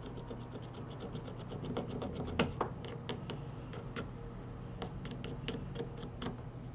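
A hand tool scratching and clicking against a smartphone's frame. It starts as a quick run of small, even ticks, then gives sharper, irregular clicks, the loudest about two and a half seconds in, over a low steady hum.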